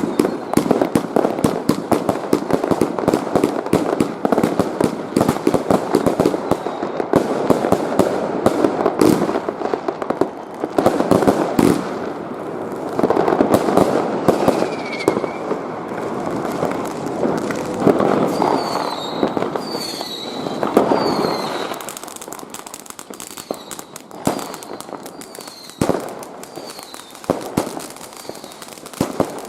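New Year's Eve fireworks and firecrackers going off in dense, continuous crackling and banging, with a few short falling whistles in the middle. About two thirds of the way through it thins to scattered separate bangs.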